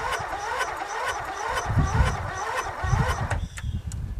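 Briggs & Stratton 13.5 hp flathead riding-mower engine being turned over by its electric starter, a rhythmic whir that rises in pitch about three times a second, and it stops a little over three seconds in without the engine catching. It cranks slowly, which the owner doubts is fast enough to start it, even with a battery charger connected.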